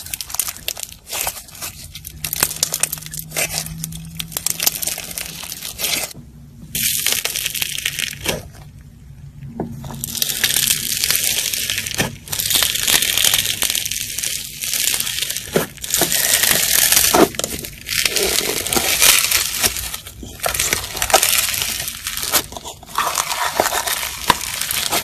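Crunchy slime and purple foam-bead slime (floam) being squeezed, poked and stretched by hand: repeated bursts of dense crackling and popping, with short lulls between them.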